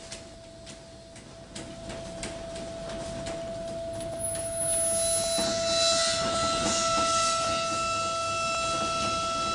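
Live noise improvisation: a steady sustained tone with scattered clicks. About halfway through, a higher second tone and a loud hissing wash of noise come in, and the sound grows louder.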